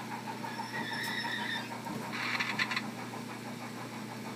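Model steam locomotive's LokSound DCC sound decoder playing its running sounds through the model's small speaker: a steady hum with a pulsing beat, a higher whine from about half a second in, then a short hiss about two seconds in.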